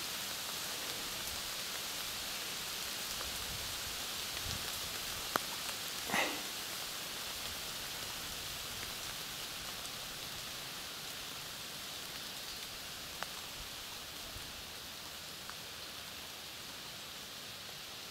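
Steady hiss of light rain falling, with one brief sound gliding up in pitch about six seconds in.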